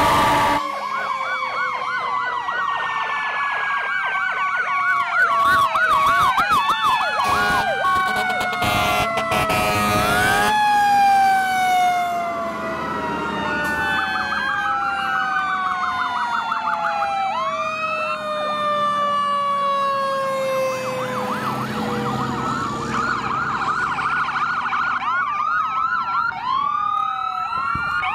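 Several emergency-vehicle sirens sounding at once as fire apparatus and police SUVs pass, their electronic wail and fast yelp tones overlapping. Long tones fall slowly in pitch, and fast warbling yelps stand out near the start and again near the end.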